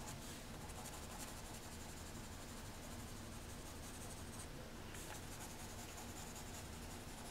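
Faint scratching of a graphite pencil shading on sketchbook paper, with a short pause a little past the middle.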